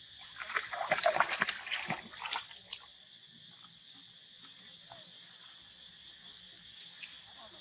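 Water splashing and sloshing in a busy burst lasting about two seconds, then dying away, over a steady high hiss.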